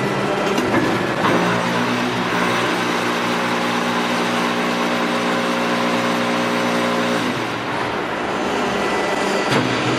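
QTF4-25 automatic hydraulic concrete block machine and its stacking line running: a steady mechanical din, with a droning hum that comes in about a second in and cuts off about seven seconds in.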